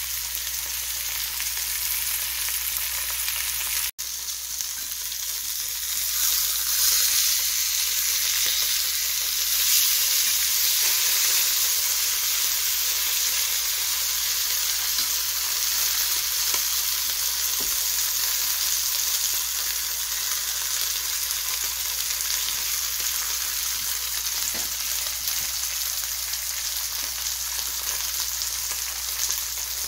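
Mackerel fillets sizzling in hot oil in a stainless steel frying pan, a steady frying hiss. It cuts out for a moment about four seconds in, then runs somewhat louder for a few seconds.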